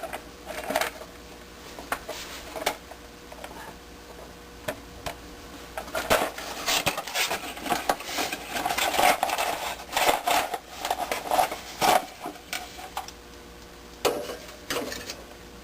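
Small hard parts and packaging being handled: irregular clicks, clinks and rustles, busiest in the middle.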